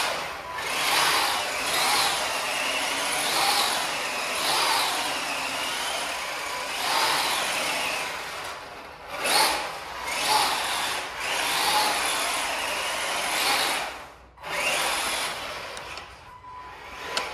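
Tamiya CC01 RC truck's stock brushed electric motor on a 3S LiPo, revving up and down in repeated bursts. Its whine rises and falls with the throttle, mixed with tyres scrubbing on a tile floor as the truck spins donuts. It eases off briefly twice.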